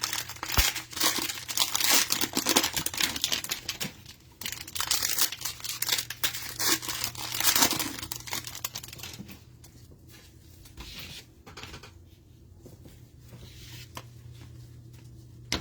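Cellophane wrapper of a trading-card cello pack being torn open and crinkled, dense and crackly for about the first eight seconds, then dying down to quieter handling with a few light clicks.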